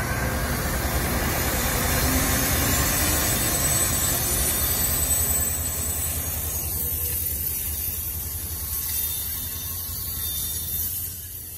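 Amtrak passenger train pulling out of a station, its stainless-steel baggage cars rolling past at low speed: a steady rumble and clatter of steel wheels on the rails. A high hiss over the rumble fades about halfway through.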